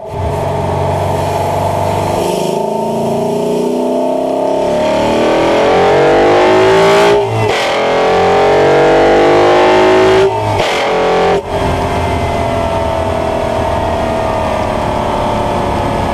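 Intake of a Steeda-tuned 2011 Ford Mustang GT's 5.0 Coyote V8, picked up under the hood beside the open cone air filter, during a full-throttle pull through the gears. The engine note climbs in pitch and drops at upshifts about seven and ten seconds in. The throttle closes about eleven seconds in, and the note then falls slowly.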